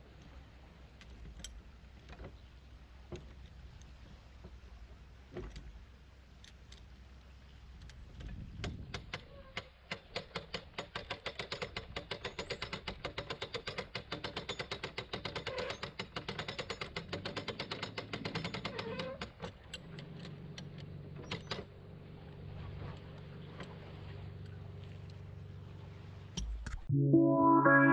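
Lockmaster ratchet windlass clicking rapidly and evenly for about ten seconds in the middle as a lock paddle is wound, with scattered clicks before it and a steady low hum after. Guitar music comes in just before the end.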